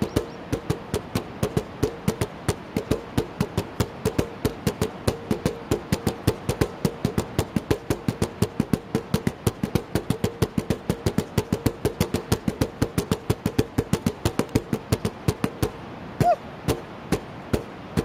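Nunchaku drumming on plastic buckets: a fast, steady run of sharp strikes, several a second, that thins to a few single hits near the end.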